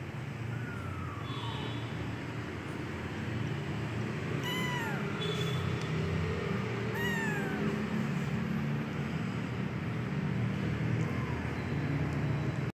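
Persian kitten mewing: four short, high calls, each falling in pitch, a few seconds apart, the last one faint. A steady low rumble runs underneath.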